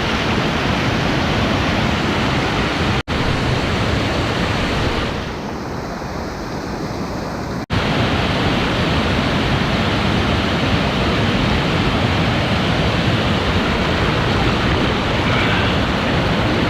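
Waterfall, a steady loud rush of falling water. It cuts out for an instant twice, about three seconds in and just before eight seconds, and sounds duller between the two.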